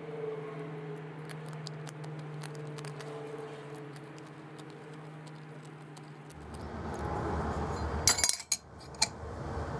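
Small metal parts clinking and ticking as they are handled, over a steady low hum. After about six seconds the background turns to a louder rushing noise, and a few sharp metallic knocks come near the end.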